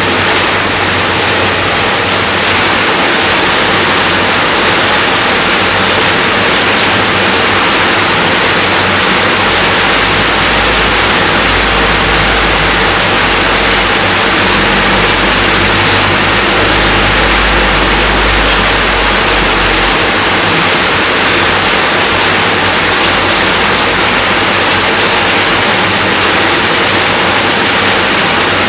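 Steady rainfall, a dense even hiss. A low rumble swells underneath for about ten seconds in the middle.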